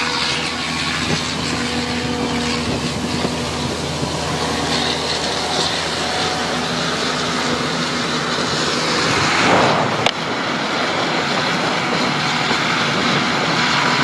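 A vehicle or machine engine running steadily, with a rush of noise that swells and ends in a sharp click about ten seconds in.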